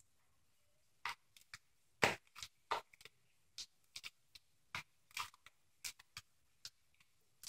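Fluffy slime made of clear glue, shaving gel and borax being squeezed and pulled apart between bare hands, giving faint, irregular sticky clicks and smacks about twice a second, as the slime firms up and comes together.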